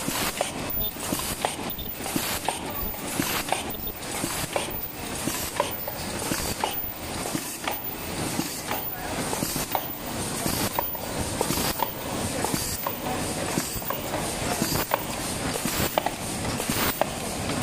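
Automatic paper cup and double-wall sleeve machine running at production speed: a steady mechanical clatter, with strokes and sharp clicks repeating about one and a half times a second.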